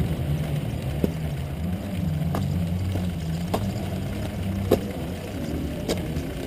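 Suzuki RM250 two-stroke single-cylinder motocross engine running at low revs, with sharp ticks about every second.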